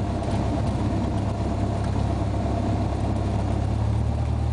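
Cessna 172's single piston engine and propeller running steadily, with an even low drone.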